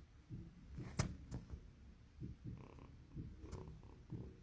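A calico kitten purring in steady repeating cycles while being stroked, with a single sharp tap about a second in.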